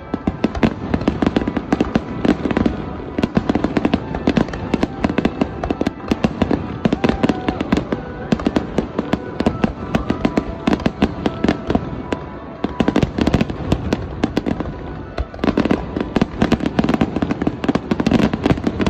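Aerial firework shells bursting in a rapid barrage, many bangs and crackles overlapping, easing off briefly twice before picking up again.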